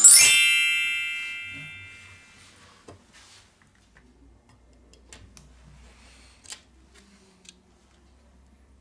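A bright chime sound effect rings once and fades away over about two seconds. Afterwards come a few faint clicks of small phone parts being handled.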